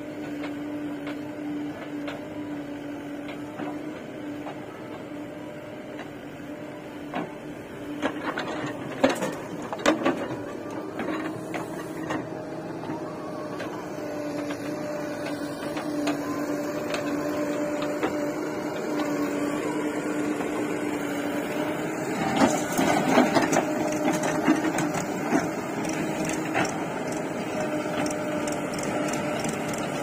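JCB 3DX backhoe loader's diesel engine running with a steady hum. Knocks come about nine seconds in and again, louder, in a burst of clatter about 22 to 25 seconds in, as the engine grows louder.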